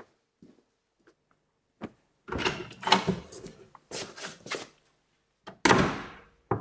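Belongings being handled and packed into a box on a desk: rustling and knocking in several bursts, the loudest a sudden knock or slide near the end.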